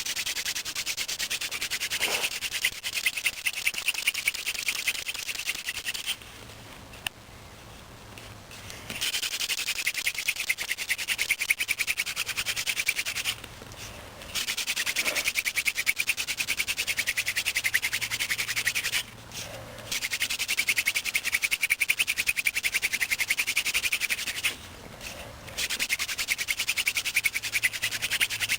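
Hand-drill friction fire: a cattail spindle spun between the palms grinds in the notch of a willow hearth board, a rapid dry rasping in five bouts with short pauses between them, drilling to build up an ember.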